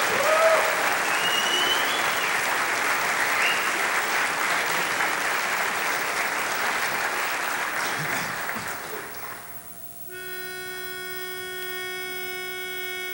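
Audience applause with a few whistles, fading out about nine seconds in. About ten seconds in a barbershop pitch pipe sounds one steady reed note, held to the end, giving the quartet its starting pitch for the next song.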